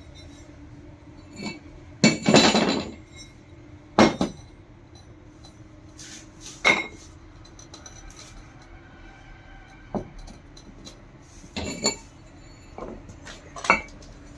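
Metal pump parts being handled and set down: an irregular series of sharp clinks and knocks, the loudest cluster about two seconds in, over a faint steady hum.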